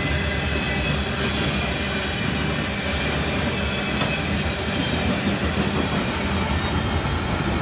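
Covered hopper cars of a CN potash freight train rolling past close by, a steady, loud noise of steel wheels on rail.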